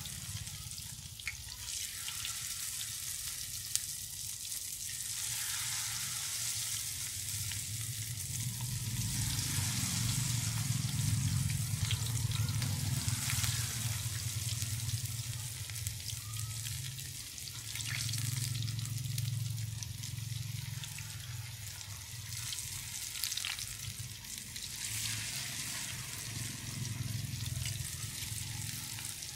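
Battered breadfruit sticks deep-frying in hot oil in a pan: a steady sizzle and crackle of bubbling oil. A low hum runs underneath, swelling for a few seconds at a time.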